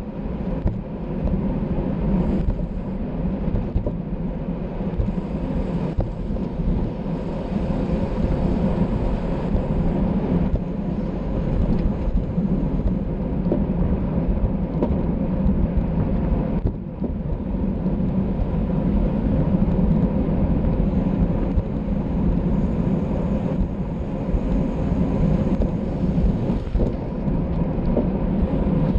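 Wind rushing over the microphone of a camera riding on a racing bicycle at speed, a steady low rumble mixed with road noise.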